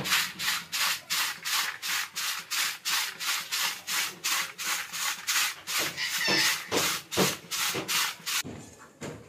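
Wet rice and yellow split lentils rubbed and swirled by hand in a plastic bowl while being washed, a rhythmic gritty scrubbing of about four strokes a second that stops near the end.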